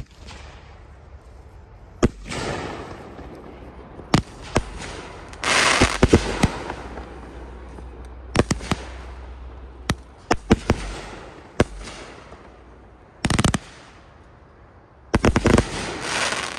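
Consumer aerial fireworks firing: about ten sharp bangs at uneven intervals, some in quick clusters, several trailing off in a crackling hiss. The loudest stretches come around six seconds in and near the end.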